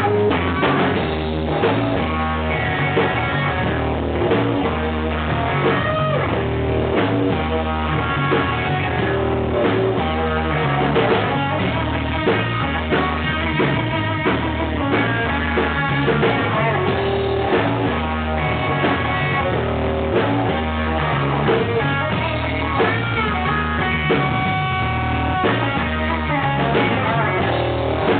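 Blues band playing live, with drum kit and bass guitar.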